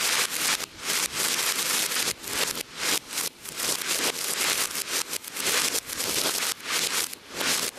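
Ground fountain firework spraying sparks, a dense hissing crackle, played backwards so that each surge swells up and then cuts off sharply.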